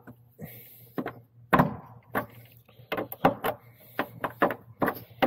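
Small fasteners being pushed onto an emblem's studs from behind a car body panel: an uneven run of about a dozen sharp clicks and knocks, the loudest about a second and a half in.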